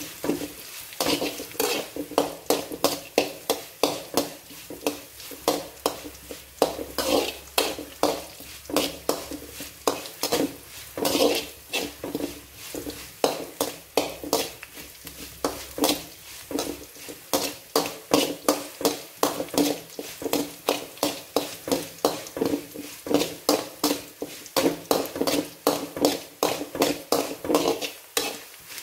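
A metal spoon scraping and clinking against an aluminium kadai in quick, regular strokes, about two or three a second, as chopped ginger, garlic, green chillies and curry leaves are stirred and fried in hot oil, with a light sizzle underneath.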